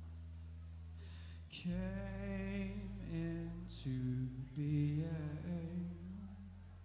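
Live indie band music: a steady low keyboard drone, joined about a second and a half in by a male voice singing slow, drawn-out phrases.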